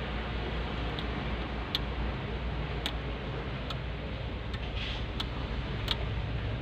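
Light, irregular clicks and ticks, roughly one a second, from hands working wiring and plastic parts behind an opened truck dashboard panel, over a steady low hum.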